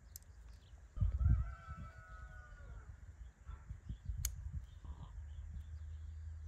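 A rooster crowing once: one long call of nearly two seconds, starting about a second in. Dull low thumps sound at the start of the call.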